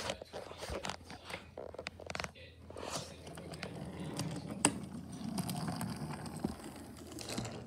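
Wooden toy subway car pushed by hand along a wooden toy train track: its wheels roll with a low rumble and scattered clicks and knocks. The rumble is steadiest in the second half.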